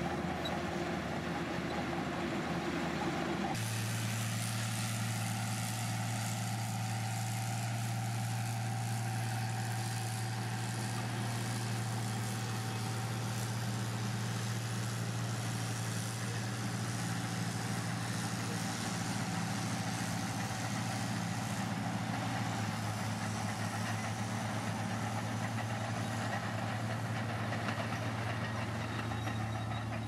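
Heavy diesel engine of a Komatsu bulldozer running steadily, a low drone over a wide mechanical noise. The engine sound changes abruptly about three and a half seconds in, then holds steady.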